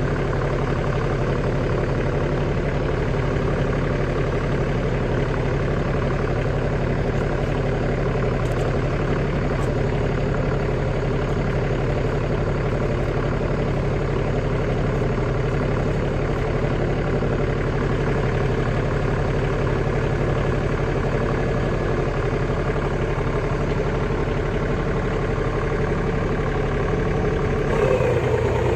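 Tractor engine running steadily, with a slight rise in level near the end.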